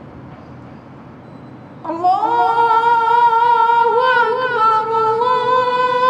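A muezzin's voice starting about two seconds in and chanting a long, drawn-out melodic note with small ornamental turns, after a low background hiss.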